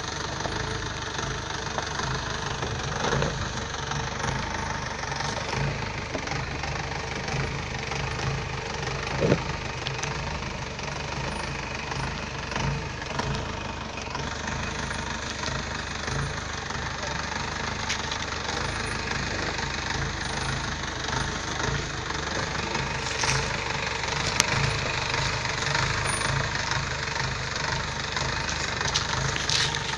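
Mahindra jeep's engine running at low revs as it crawls over a rough dirt track, with a few sharp knocks along the way. It grows slightly louder near the end as the jeep comes closer.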